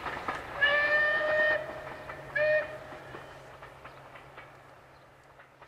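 Steam locomotive whistle: one long blast, then a short one about a second later, over the clickety-clack of train wheels on rail joints. The train's sound fades away as it draws off.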